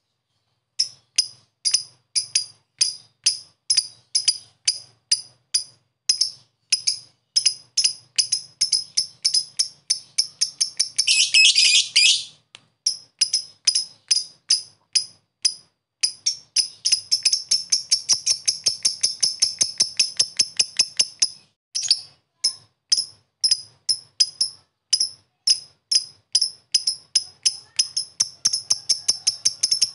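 Masked lovebird calling in a fast, even series of sharp, high chirps, about two to three a second: the clicking 'ngetik' call. About eleven seconds in, and again for several seconds in the middle and near the end, the chirps run together into a dense chattering trill: the long 'ngekek'.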